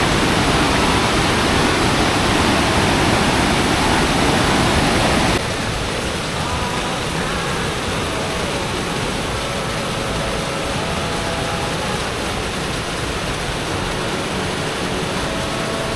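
Spring-fed waterfall pouring out of a canyon wall, a steady rushing roar of falling water. About five seconds in it drops abruptly to a quieter, steady rush.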